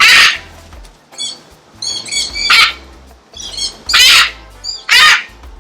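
Large parrot screaming: four loud, harsh squawks about a second or so apart, with softer, higher chirping calls between them.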